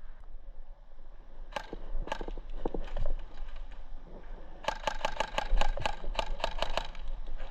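Airsoft guns firing: a few scattered single shots, then a quick string of about seven sharp clicks a second lasting a couple of seconds.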